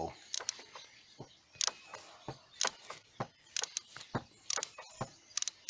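A 3/8-inch-drive ratchet on a universal joint and extension clicking in short, irregular bursts of a few clicks at a time, as the socket on an oil pressure sensor is worked loose.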